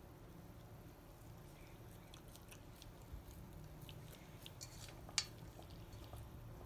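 Great Pyrenees faintly chewing soft food chunks taken from a hand, with scattered small wet clicks and one sharper click about five seconds in.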